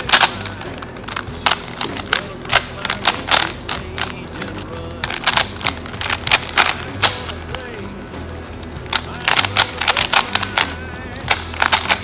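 Quick clusters of sharp plastic clicks from a Rubik's Cube's layers being turned fast during a speed-solve, over background music.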